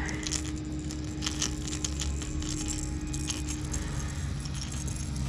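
A hard plastic topwater walking bait and its treble hooks clicking and rattling as they are worked free of a small largemouth bass's mouth, scattered light clinks throughout. A steady low hum runs underneath.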